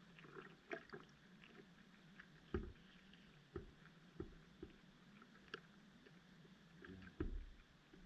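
Faint underwater sound picked up through a submerged camera: a low steady hum with scattered soft clicks and knocks, the strongest about two and a half seconds in and again near the end.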